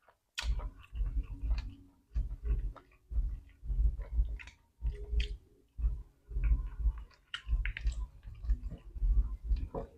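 Close-up eating sounds: chewing with wet smacks and small clicks, coming in bursts about once a second.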